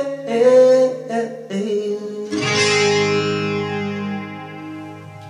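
Acoustic guitar closing a song: a short held note in the first second, then a final strummed chord about two seconds in, left to ring and slowly fade out.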